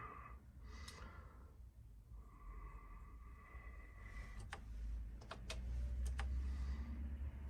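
Keys pressed on an Apple II keyboard: a few sharp clicks in the second half, some in close pairs, over a low hum.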